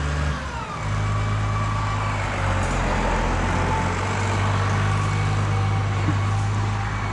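Diesel farm tractor engine running steadily, its note shifting under a second in and then holding.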